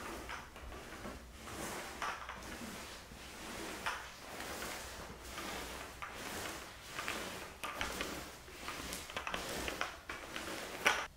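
Cotton muslin bedding rustling and swishing as it is handled and smoothed, in a run of irregular soft swishes with a sharper one near the end.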